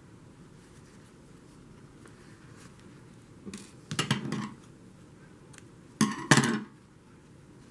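Rustling and brushing from hands handling a chunky-yarn crochet hat and pulling sewing thread through it, in a few short bursts about three and a half, four and six seconds in.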